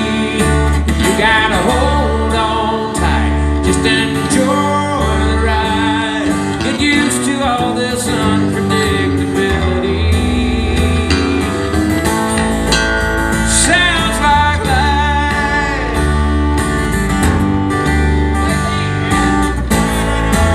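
Live country band playing an instrumental passage of the song, guitar to the fore over bass and drums, with sliding, bending lead notes.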